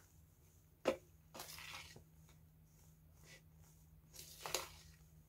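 Spatula folding flour into whipped egg whites in a plastic bowl: a soft knock on the bowl about a second in, a brief scrape just after, and another scrape and knock near the end.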